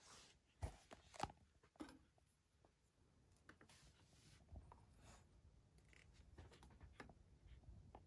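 Near silence: quiet room tone with two faint sharp taps about a second in, then light scattered ticks and rustling.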